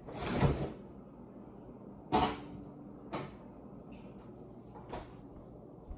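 Kitchen doors and dishes being handled: a short rush of noise, a sharp knock about two seconds in, then lighter clicks about a second and three seconds later.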